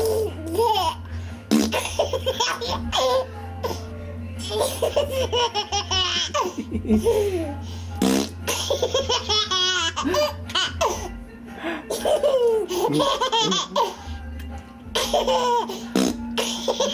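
A small boy and his father laughing and trading silly vocal noises back and forth in a lively, playful volley, with high squeals among them. A steady low hum runs underneath.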